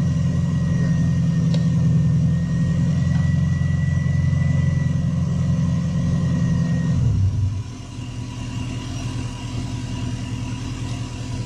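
1997 Subaru Impreza's flat-four engine idling with a thin steady whine, then shut off about seven seconds in; the engine has just been started after sitting for four years. A quieter engine hum carries on after it stops.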